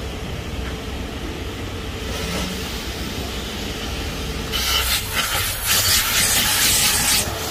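Car-wash vacuum station running with a steady low hum, then from about four and a half seconds the hose nozzle sucks at the car seat upholstery with a loud hissing rush that comes and goes in a few surges until near the end.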